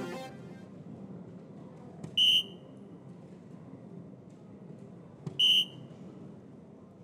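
Soft-tip darts hitting an electronic dartboard twice. Each impact click is followed at once by a short, high electronic beep as the board scores the hit, a single 17.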